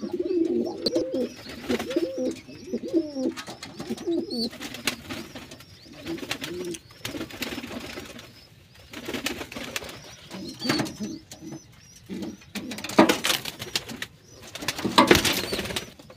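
Kalsira pigeons cooing: wavering, rolling low coos through the first few seconds. In the second half come louder bursts of rustling and knocking.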